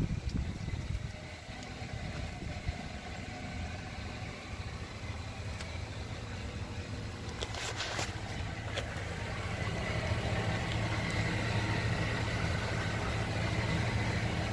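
Chevy Silverado 1500 pickup engine idling steadily, a little louder in the second half, with a couple of sharp clicks about halfway through.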